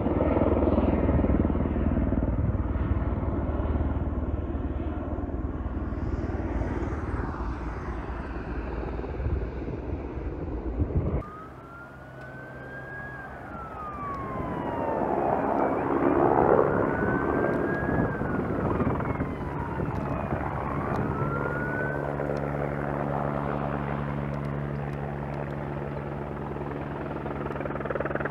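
A low steady rumble ends abruptly. Then fire truck sirens wail, slowly rising and falling in pitch several times, giving way to a steady engine drone.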